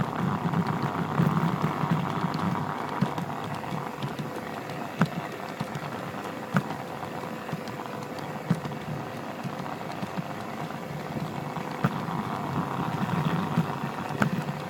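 G-scale model train running along its track, heard from on board: a steady motor-and-wheel running noise with a low hum that swells and eases, and occasional sharp clicks.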